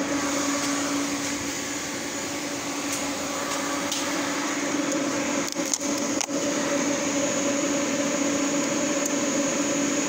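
Induction forge setup with its water cooler running: a steady hum with a low tone and a high whine over it. A few light clicks and knocks of handling come through the middle.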